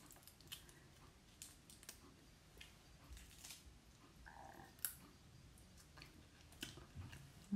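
Faint, scattered clicks and small cracks of a cooked crab's shell being picked apart by hand, with some soft chewing.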